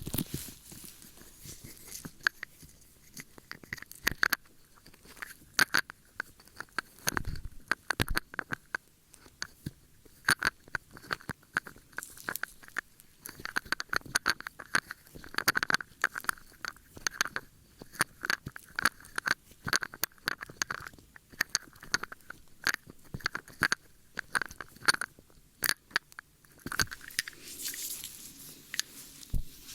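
Close-up ear-cleaning ASMR sounds: irregular crackly scratching and quick clicks, several a second.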